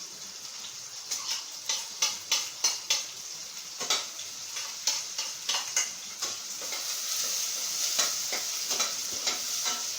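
Chopped aromatics with crushed ginger sautéing in hot oil: a steady sizzle, with a spoon clacking and scraping against the pan at irregular moments as it is stirred, most often in the first six seconds.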